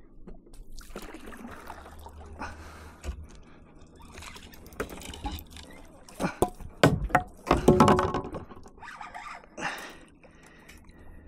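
A hooked snook splashing and thrashing at the surface beside a kayak, with sloshing water and a few sharp knocks, loudest just past the middle.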